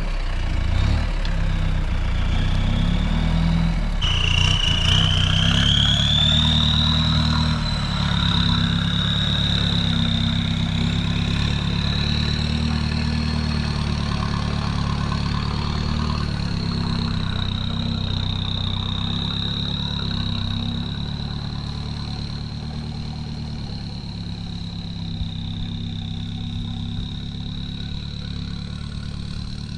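Mahindra Roxor's turbo-diesel four-cylinder engine running steadily at low revs while driving off-road. A thin high whine sits over it from about four seconds in.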